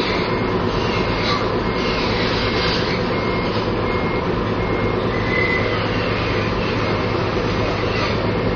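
An engine running steadily with a low hum, with short faint high beeps now and then in the first few seconds.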